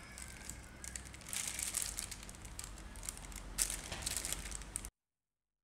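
Plastic piping bag and disposable plastic glove crinkling and rustling in two spells as whipped cream is spooned into the bag with a spatula; the sound cuts off suddenly near the end.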